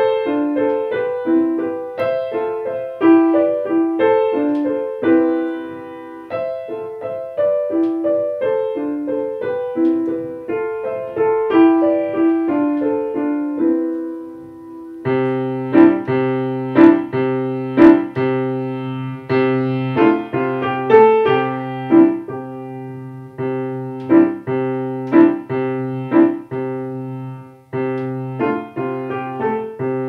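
Grand piano playing a solo piece: a light melody of short notes in the middle register, then about halfway a held low bass comes in under louder, accented chords.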